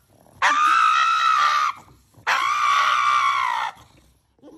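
Pug screaming in protest at having its nails clipped: two long, high-pitched screams held at a steady pitch, each over a second long, with a short break between them.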